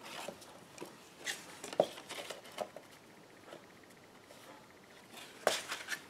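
Hands handling cardstock and twine on a craft mat: scattered light rustles and taps of paper and string, with one sharper tap near the end.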